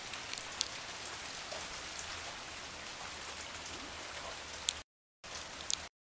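Steady rain falling on standing floodwater, an even hiss with a few sharp drop ticks. The sound cuts out completely twice near the end.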